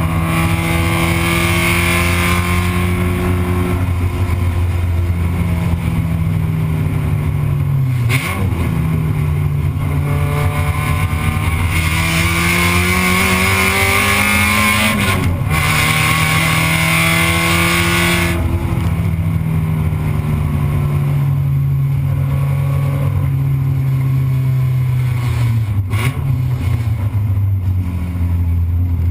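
Spec Miata's four-cylinder engine under racing load, heard from inside the stripped cockpit. Its pitch rises and falls through the corners, dropping sharply about 8, 15 and 26 seconds in. A loud rushing hiss builds over the engine around the middle, while the engine's pitch is at its highest.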